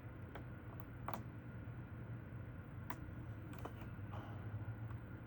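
Light metallic clicks and short scrapes of a lock pick and tension wrench working the pins of a Goal D9 nine-pin pin-tumbler lock, a handful of irregular clicks, over a steady low hum.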